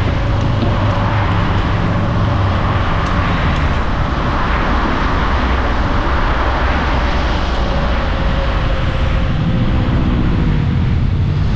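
Wind buffeting the microphone and road rumble from a Nami Viper electric scooter being ridden at speed, with a faint steady whine.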